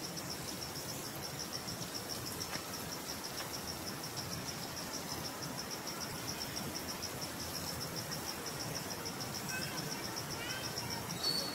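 Insect trilling steadily: a high, evenly pulsed buzz that never breaks, over a low background hiss, with a few faint short chirps near the end.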